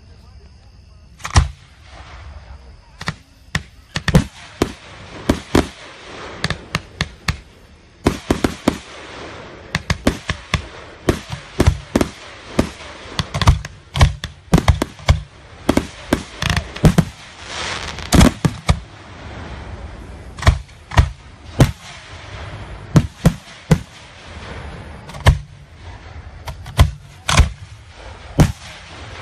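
Aerial fireworks going off: shells launching and bursting in a fast, irregular string of sharp bangs, most densely packed through the middle, with a crackling hiss between the reports.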